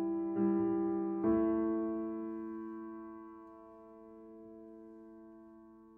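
Soft piano music: a chord struck about half a second in and another just past one second, the last one held and slowly fading away.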